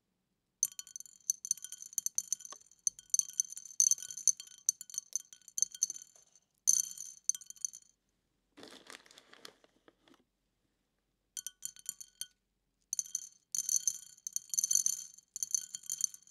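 Small dried beans dropping in quick bursts into a hard bowl, clicking and setting the bowl ringing with a bright, high ring. About halfway through there is a softer, lower rattle for a couple of seconds.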